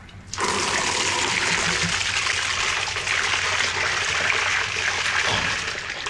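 Water gushing from a washing machine drain pump's waste hose into a wire-mesh kitchen sieve, a steady loud rush. It starts about half a second in and tails off near the end.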